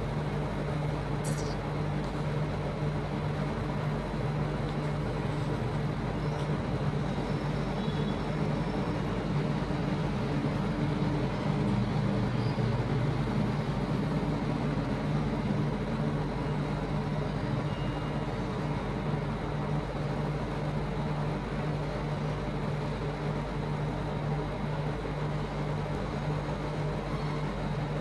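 A steady low mechanical hum over a constant background noise, with a brief click about a second in.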